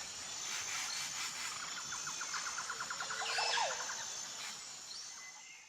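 Forest birdsong: a rapid trill of quick repeated notes lasting about a second and a half, and a short falling whistle, over a steady high-pitched drone of insects. The sound fades out near the end.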